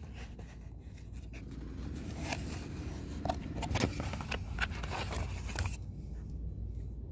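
Cardboard box and a paint brush's card packaging being handled: a run of scrapes and crackling clicks that stop about six seconds in, over a steady low rumble.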